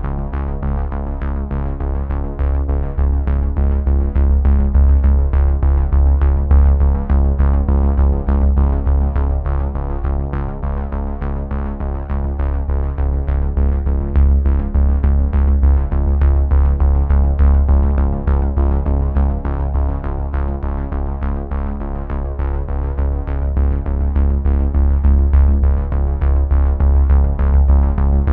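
Background electronic music: synthesizer chords over a strong bass and a steady drum-machine beat.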